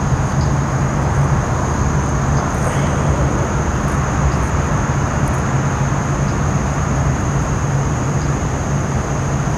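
Steady road and engine noise of a moving vehicle: a constant low rumble under an even hiss, with a faint steady high whine.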